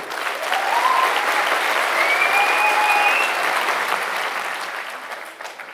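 Audience applauding, starting at once and fading away over the last couple of seconds, with a few thin high tones rising over it early on.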